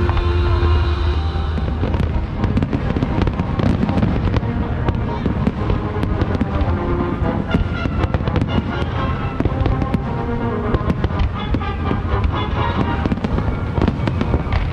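Fireworks display: rapid, continuous bangs and crackles of bursting shells with a low rumble, with music playing underneath.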